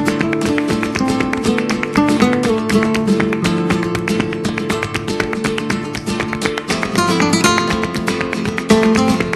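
Background music: flamenco-style acoustic guitar playing a quick run of densely plucked and strummed notes.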